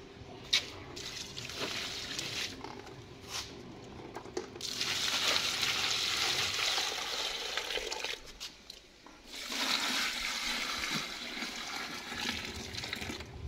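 Water running in two spells of a few seconds each, with a few light knocks before it.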